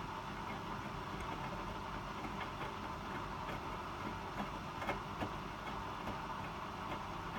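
Hotpoint WMFUG 942 washing machine running between spin phases, a steady mechanical hum with a few light clicks a little past the middle.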